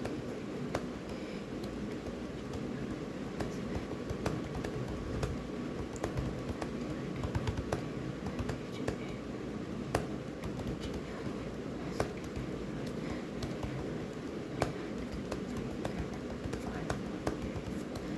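Typing on a computer keyboard: a stream of irregular key clicks, with a few louder keystrokes, over a steady low background noise.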